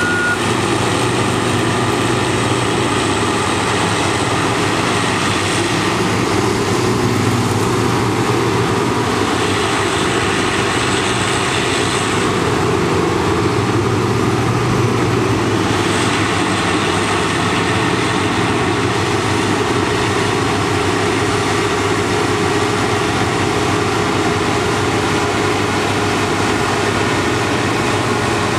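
New Holland FX450 self-propelled forage harvester running under load, chopping wholecrop silage and blowing it through the spout into a trailer, together with the engine of the tractor hauling the trailer alongside. A steady, loud machinery noise.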